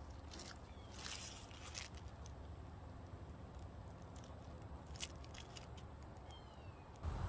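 Faint scattered clicks and light rustling, with a cluster about a second in and a single click about five seconds in, typical of small gear being handled. A couple of short falling chirps sound near the start and again about six seconds in.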